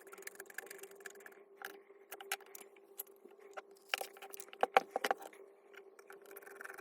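Tools and small metal parts of an electric hammer clicking and clinking as it is taken apart by hand, with a quick run of louder knocks about four to five seconds in.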